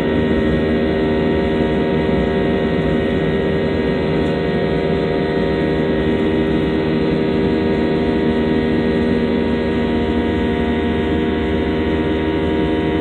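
Airliner engines heard from inside the passenger cabin: a steady, loud drone with several fixed humming tones over a constant rush of noise.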